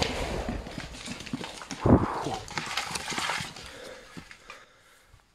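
The echo of a huge firecracker blast dies away while the pieces of a blown-up shed come down and hit the ground in scattered knocks and thuds. The heaviest thud lands about two seconds in, and the knocks thin out toward the end.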